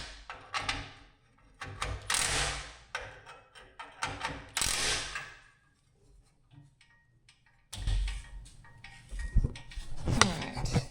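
Hand work on a boat trailer winch: several rasping strokes, each about a second long, then a sudden clunk and sharp metallic knocks with a brief ringing near the end.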